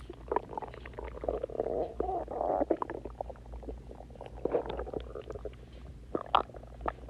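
Stomach growling and gurgling: a bubbly rumble peppered with small crackling clicks, swelling louder about two seconds in and again around four and a half seconds, over a low steady hum.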